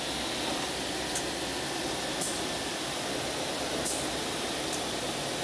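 Holztek six-sided CNC panel drilling machine running: a steady mechanical noise with a faint high whine, and a few short, high ticks.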